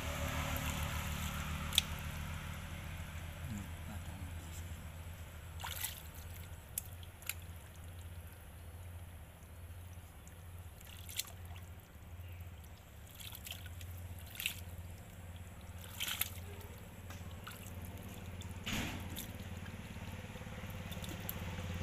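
A hand squelching and splashing in shallow muddy water, with scattered short wet clicks and splashes as it digs through the mud. A steady low hum runs underneath.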